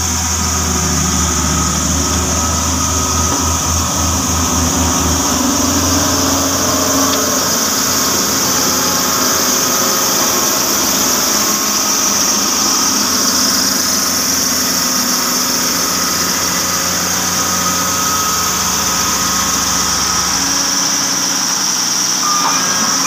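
Heavy road-construction machine's engine running steadily; its low rumble eases about five seconds in. A reversing beeper starts near the end.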